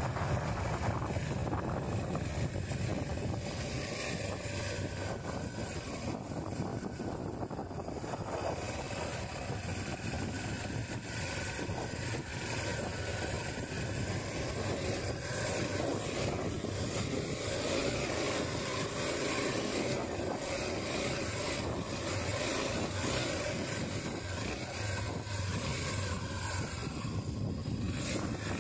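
Honda XR250 Tornado's single-cylinder four-stroke engine running steadily as the dirt bike rides along a gravel trail.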